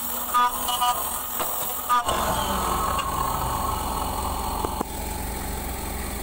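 CNC milling machine cutting an aluminium sliding-door profile, with a few short, loud high-pitched bursts in the first two seconds. The cutting stops suddenly just under five seconds in, leaving a steady low machine hum.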